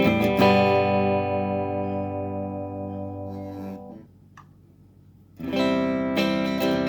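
Electric guitar played through a Russel RG15 combo amp. A strummed chord rings out and fades to a brief pause with a small click, then the strumming starts again about five and a half seconds in.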